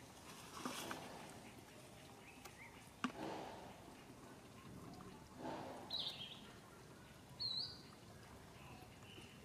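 Faint outdoor background with scattered short sounds: a sharp click about three seconds in, a few brief lower sounds, and two short high-pitched animal calls about six and seven and a half seconds in.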